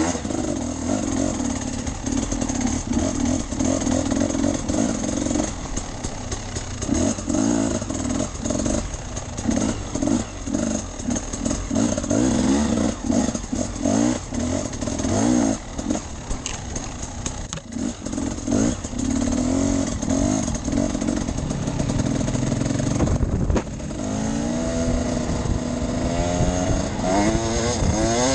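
Enduro motorcycle engine revving up and down with the throttle as the bike rides over rough ground, with knocks and clatter from the bumps. Near the end the pitch rises several times in a row as the bike accelerates through the gears.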